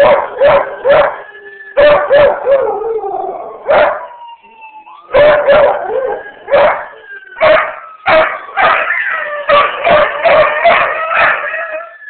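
Beagle/shepherd mix howling in a long string of short, loud, yipping howls in quick bursts, answering an ambulance siren that wails slowly up and down behind it. The howls stop shortly before the end while the siren goes on.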